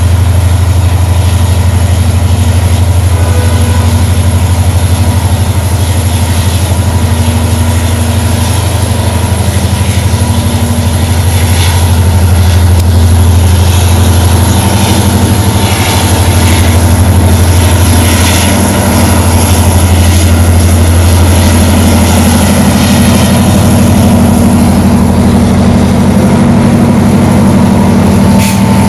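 Diesel locomotive engine running at a standstill, a loud steady deep drone that grows a little stronger about two-thirds of the way through.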